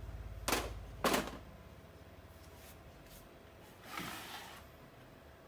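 Two sharp clacks about half a second apart as small items are handled on a metal-topped workbench, followed about four seconds in by a short rustle.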